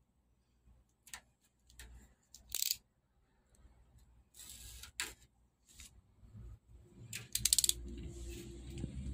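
Double-sided adhesive tape being handled and pressed onto a TV's sheet-metal back frame: scattered small clicks and short scrapes. About seven and a half seconds in comes a brief crackly run of rapid ticks, the loudest sound, as the tape is pulled and rubbed down.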